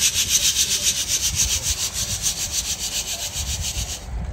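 Fast, even, rhythmic rasping scrape at about six strokes a second, stopping abruptly near the end.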